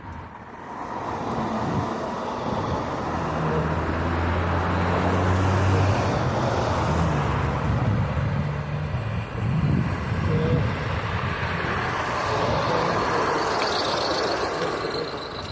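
A motor vehicle running, with road and tyre noise building up over the first second or so and a low steady hum for a few seconds in the middle.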